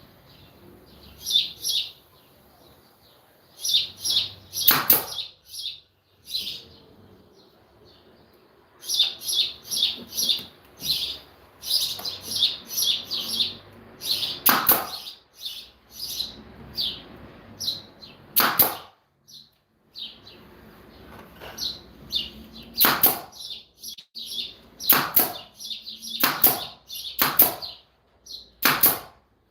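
Small birds chirping in quick clusters of short high calls, with about eight louder short, sharp sounds scattered among them.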